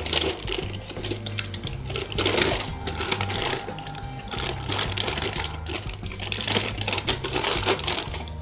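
Clear plastic packaging bag crinkling and rustling in irregular bursts as a wrapped motorcycle part is handled and pushed back into it.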